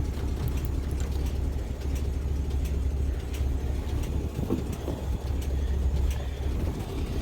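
International Harvester 1600 truck engine idling steadily with a smooth, even low drone. It runs well on a new carburetor and fuel line.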